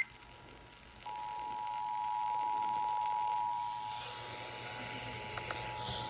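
Emergency Alert System attention tone, a steady electronic tone that comes in about a second in after a short gap of faint hiss, received off the air on an FM radio during a required monthly test.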